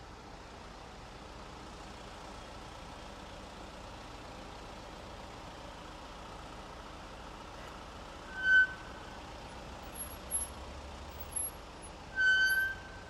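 Road traffic stopped at a red light: a steady low hum of idling cars. A short, high-pitched squeal comes about eight and a half seconds in, and a longer one near the end.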